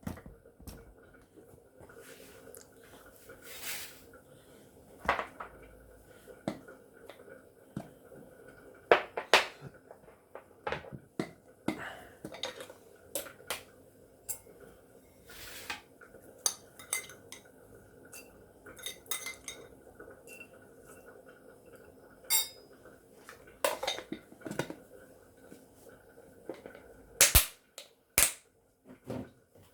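Dishes, pots and utensils clinking and knocking during meal preparation: irregular sharp clatters with short gaps between them, over a faint steady hum.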